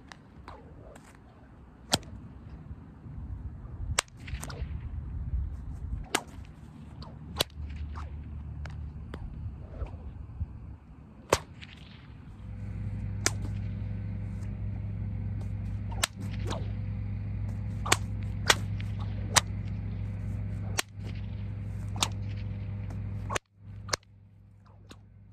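An 8-foot kip hide bullwhip in the Raiders style being cracked over and over: about fifteen sharp cracks, a few seconds apart at first and coming more quickly in the second half. From about halfway a steady low hum runs under the cracks.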